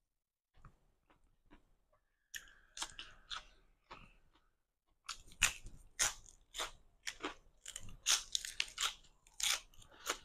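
Iceberg lettuce wrapped around stir-fried noodles being bitten and chewed: sharp, crisp crunches, sparse at first and coming thick and fast from about halfway in.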